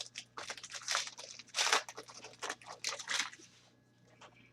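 Foil trading-card pack wrapper crinkling and tearing as a pack is opened, in irregular crackles that stop about three and a half seconds in.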